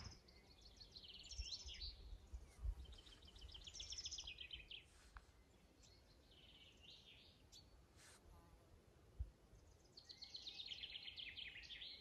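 Faint forest birdsong: a songbird singing phrases of fast repeated notes, several times with pauses between.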